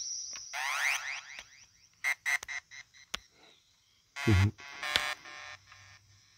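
Korg Monotron Delay analogue synthesizer played with short taps on its ribbon keyboard: a brief rising swoop near the start, then scattered short bleeps and a louder note that sweeps down about four seconds in.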